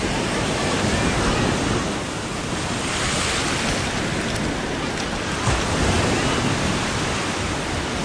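Steady rush of ocean surf breaking on a sand beach, mixed with wind buffeting the microphone. The hiss swells for a moment about three seconds in.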